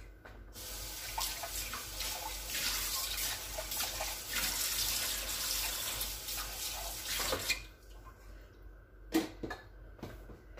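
Water running from a kitchen tap for about seven seconds, then stopping, followed by a single knock.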